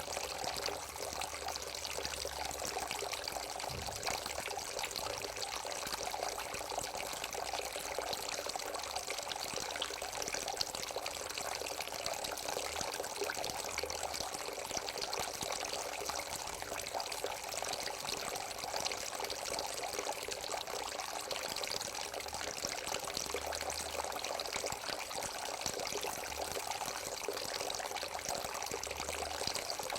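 Water spilling over the bowls of a three-tier bowl fountain, pouring and splashing steadily.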